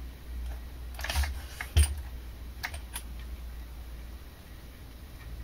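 Light clicks and knocks of a 1:8 RC car's plastic chassis and tyres being handled and set down on a wooden table, a handful in the first three seconds with the loudest just under two seconds in, over a low steady hum.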